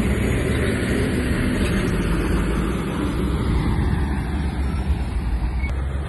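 Komatsu bulldozer's diesel engine running steadily, a low engine note under a dense, rumbling mechanical noise.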